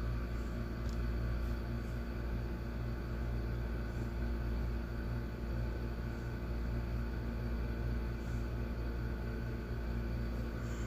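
Hyundai Accent's four-cylinder engine idling steadily after a crank-no-start fault, now running because its ECU fuse is fed 12 V directly from outside.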